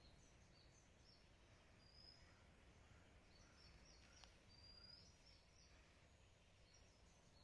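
Near silence with faint birds chirping: short high chirps and brief whistled notes repeating, over a steady low rumble.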